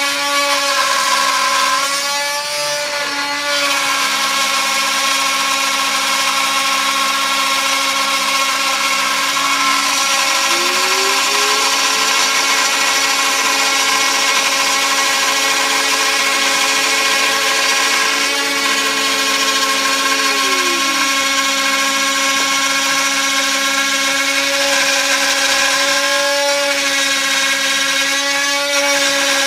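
Small 3020 desktop CNC router milling wood flooring: the spindle runs with a steady whine under the cutting noise. About ten seconds in, a second tone rises in pitch, holds, and drops back near twenty-one seconds.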